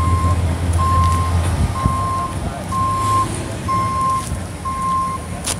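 A vehicle's reversing alarm beeping steadily, a single high tone about once a second, with a low rumble underneath that drops away about a second and a half in. A sharp click sounds near the end.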